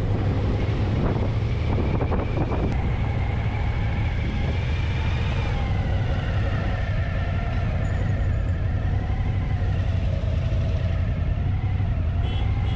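Adventure motorcycle engine running at low road speed: a steady low rumble whose pitch drifts gently up and down with the throttle. A few faint knocks come in the first two seconds.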